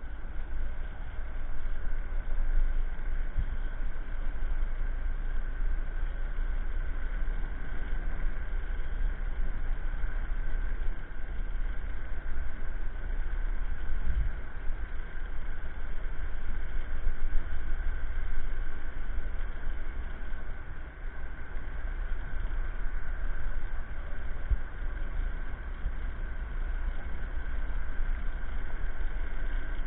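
Electric scooter running at a steady cruise on a paved path: a continuous ride noise with heavy low wind rumble on the microphone and a steady high whine.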